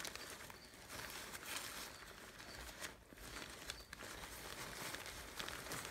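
Faint rustling and crinkling of a deflated airblown inflatable's thin fabric being handled as a small blower motor is pushed back into it.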